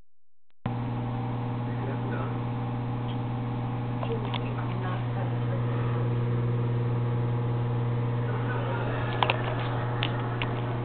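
A steady low electrical hum runs through, after a brief dropout at the start. A few sharp clicks and knocks come about nine to ten seconds in.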